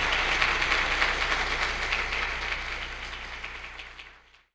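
Audience applauding, a dense spread of clapping that fades out over the last couple of seconds and stops.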